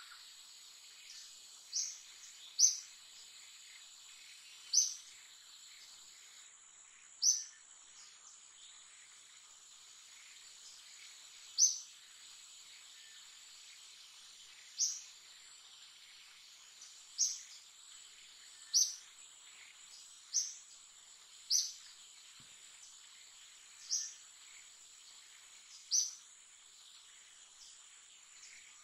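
Forest ambience: a bird gives about a dozen short, high call notes, one every one to four seconds, over a steady high-pitched insect drone.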